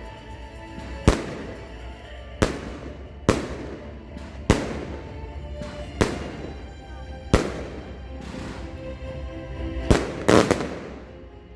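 Consumer firework battery (cake) firing: sharp aerial bursts going off about a second or so apart, eight or so in all with a close double bang near the end, over music and voices in the background.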